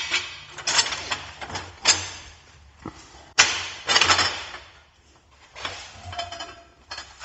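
Steel truss plates clanking against each other and the Dana 60 axle housing as they are set and shifted into place by hand: a string of sharp metal knocks, several ringing briefly.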